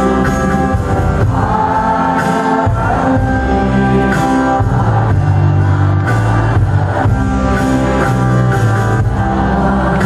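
Live song: a singer's voice through a microphone, singing Indonesian lyrics over instrumental backing with a strong bass line.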